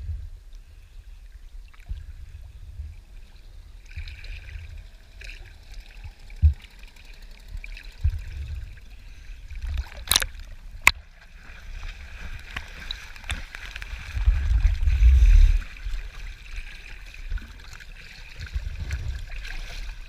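Water rushing and sloshing along a small boat's hull, with gusts of wind buffeting the microphone, strongest about two-thirds of the way through. Two sharp knocks come close together near the middle.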